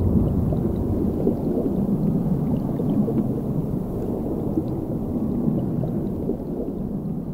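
Deep rumbling sound effect for a logo animation. It starts abruptly, holds steady and slowly fades near the end.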